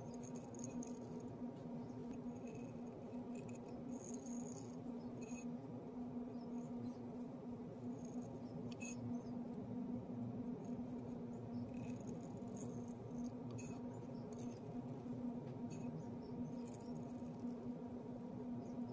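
Thin line tape being peeled off a glazed ceramic planter: scattered crackles and small squeaky ticks every second or so as the tape lifts from the glaze, over a steady low hum.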